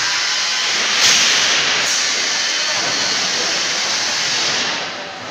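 A steady, loud hiss that jumps up slightly about a second in and dips briefly near the end.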